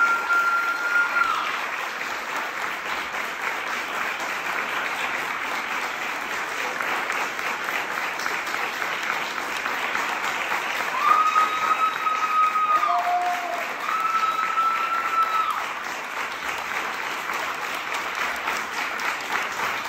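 Audience applauding steadily, with a few long, high held calls from the crowd: one at the start and two a little past the middle.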